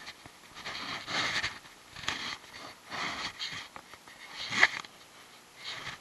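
Shallow water sloshing and splashing in short hissy bursts about once a second as a hand works a bass back and forth in it. There is a sharper, louder splash a little after four and a half seconds in.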